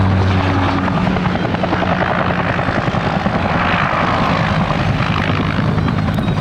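Helicopter flying, its rotor blades making a rapid, steady beat.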